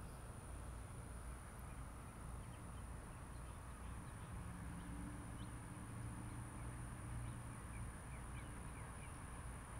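Faint outdoor ambience: distant birds chirping now and then over a steady low rumble, with a thin steady high-pitched tone and a faint low hum in the middle.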